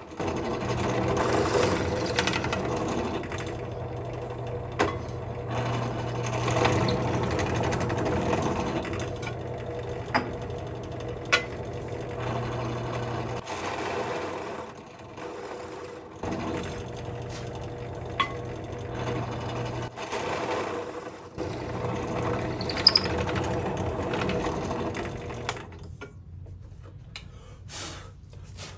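Drill press running, its half-inch bit boring holes through MDF, a steady motor hum with the cutting noise over it. The hum drops out twice in the middle and a few sharp clicks stand out.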